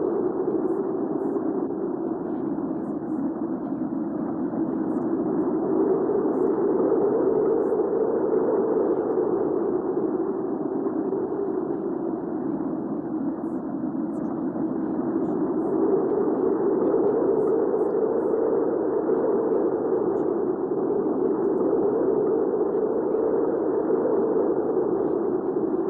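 Hurricane wind ambience: a steady, strong rush of wind whose low band swells and eases about every ten seconds.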